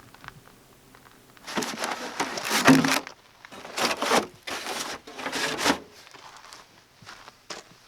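Tent fabric rustling and crinkling in four bursts, starting about a second and a half in; the first burst is the longest and loudest.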